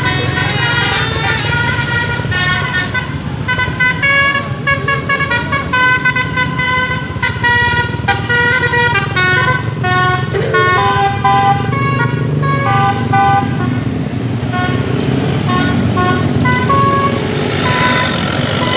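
Bus telolet musical air horn playing a quick melody of short, changing notes, over the bus's engine running with a low rumble.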